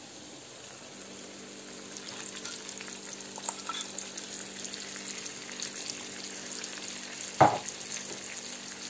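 Pork and onion frying and sizzling in a non-stick frying pan as chopped tomatoes are tipped in, with crackling throughout and a steady low hum underneath. A single knock comes about seven seconds in.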